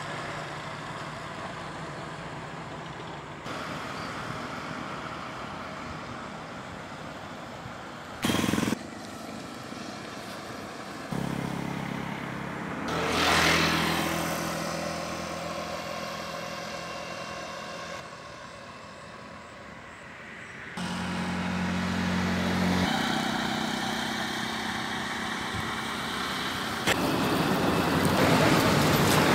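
Road traffic passing: a steady outdoor rumble with engine hum coming and going, one vehicle swelling up and passing loudly about thirteen seconds in. There is also a short loud burst of noise about eight seconds in.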